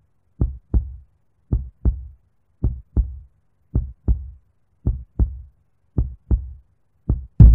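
Heartbeat sound effect: slow, even pairs of low thuds, about one pair a second. Near the end a loud low boom cuts in.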